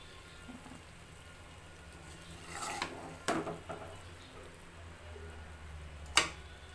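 Metal spatula stirring a thick taro stolon curry in an aluminium pot, scraping and clinking against the pot, with a couple of knocks about three seconds in and a sharper, louder knock near the end.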